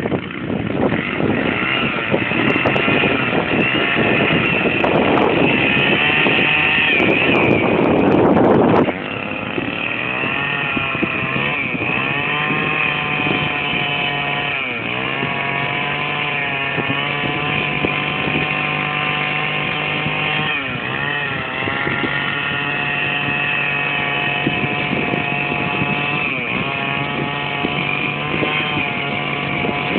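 A small engine running steadily, its pitch dipping briefly and recovering twice, about halfway through and again a few seconds later. For the first third it is louder and rougher.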